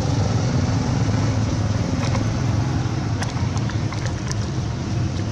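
Steady low outdoor rumble, with a few faint high chirps between about two and four and a half seconds in.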